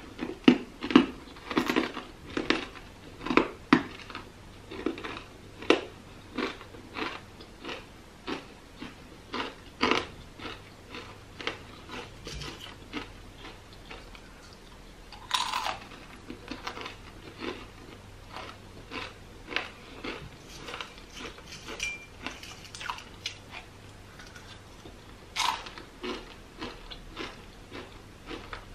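Crisp plantain chips being bitten and chewed with the mouth close to the microphone: a quick run of crunches at first, then slower, spaced-out chewing, with two sharper, louder cracks about halfway through and near the end.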